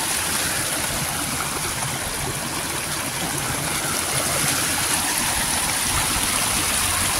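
Small moorland stream running over rocks in a little cascade: a steady, even water noise.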